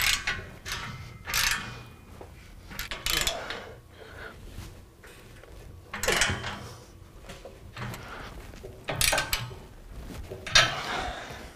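Socket ratchet clicking in short runs as band-clamp nuts are tightened on a stainless steel exhaust pipe, with pauses between clamps.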